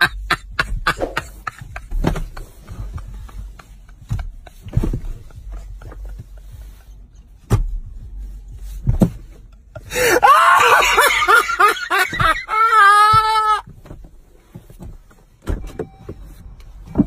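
A man's voice in fits of breathy gasps, then about ten seconds in a burst of loud, high-pitched wailing that ends in one held cry.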